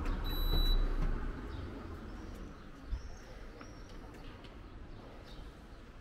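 Outdoor town ambience. A low rumble and a short, high, steady electronic beep come in the first second, then faint bird chirps and a single knock about three seconds in.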